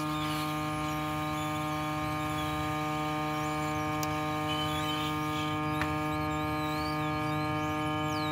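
Hot air rework gun running with a steady hum rich in overtones while it heats a phone's SIM card holder to melt its solder. A single small click about six seconds in.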